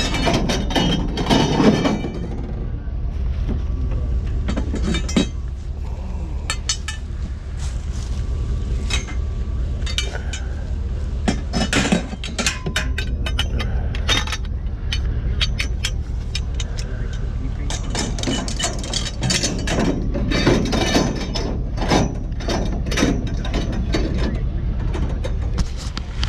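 Scrap metal clinking and clanking in repeated sharp knocks over a steady low rumble.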